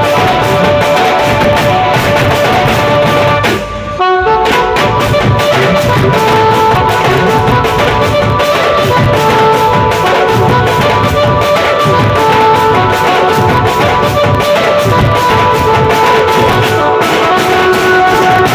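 Wedding band party playing loud Koraputia folk dance music: a strap-hung double-headed drum and hand cymbals keep a steady beat under a held melody line. The music dips briefly about four seconds in, then carries on.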